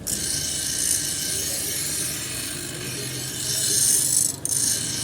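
Abrasive work on the steel of a pair of handmade pruning shears: a steady hissing scrape that breaks off briefly about four and a half seconds in, then resumes.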